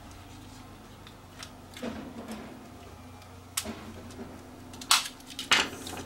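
Plastic housing of a GFCI outlet clicking and snapping as its back is worked off. A soft knock comes about two seconds in, then three sharp snaps in the last two and a half seconds, the last two the loudest.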